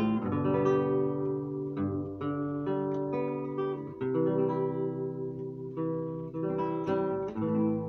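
Classical-style acoustic guitar fingerpicked, single notes and chords ringing on over each other, with a couple of strummed chords near the end.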